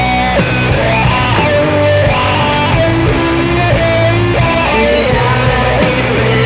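Sludge/doom metal: heavily distorted electric guitars holding long low notes, with a higher line bending between pitches above them.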